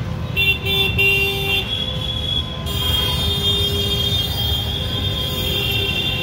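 Busy road traffic with a steady low rumble and vehicle horns honking: a few short toots in the first second and a half, then longer honks held for several seconds.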